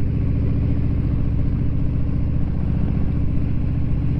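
Harley-Davidson V-twin engine running steadily as the motorcycle cruises at low speed, a low, rapid, even exhaust pulse.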